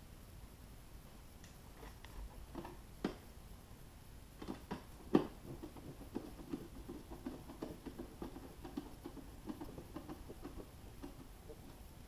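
Screwdriver driving screws into the metal cover of a car amplifier box. A few sharp knocks come about three to five seconds in, the loudest near five seconds, followed by a run of small quick clicks as the screw is turned.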